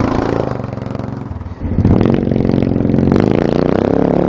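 Go-kart's small single-cylinder four-stroke engine running through an open exhaust pipe, with a loud, Harley-like note. It revs up sharply about a second and a half in as the kart pulls away, tyres spraying gravel.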